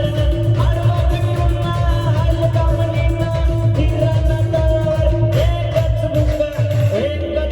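A live band playing: a singer's voice over keyboard and drums, with a steady, fast drum beat.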